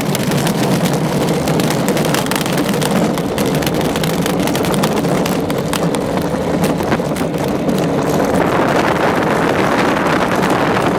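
Wheeled luge cart rolling fast down a paved alpine-slide track: a steady rumble of wheels on the asphalt, with many small clicks and rattles from the cart and wind buffeting the microphone.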